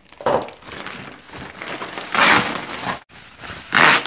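Plastic mailer and foam packing sheet being pulled and crumpled by hand: three bursts of crinkling and rustling, the loudest about two seconds in and another near the end.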